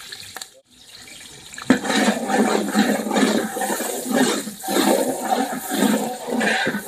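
Sliced red onions sizzling in hot oil in a large aluminium pot as they are stirred with a long ladle. The frying gets much louder a little under two seconds in.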